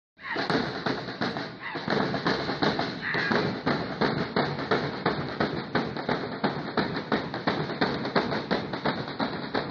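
Drumming for an Aztec-style dance: a quick, even beat of several strokes a second, with crowd voices underneath.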